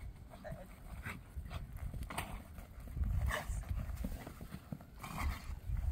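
A dog moving about on a leash: scuffing footfalls on dry grass and breathing sounds as it jumps and trots beside its handler, over a low uneven rumble.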